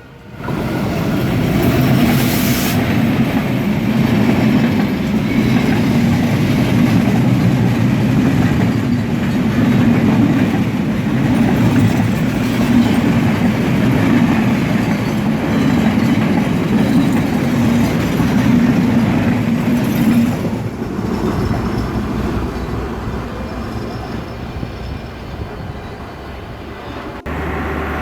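Train running on the rails: a loud, steady rumble of wheels on track that eases off over the last several seconds.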